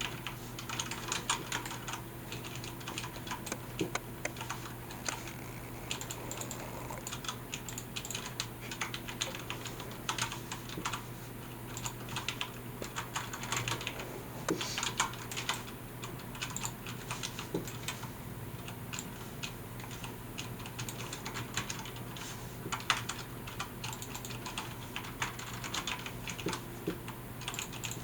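Typing on a Logitech G710+ mechanical keyboard with Cherry MX Brown switches: a steady stream of irregular key clacks, several a second, with now and then a louder keystroke.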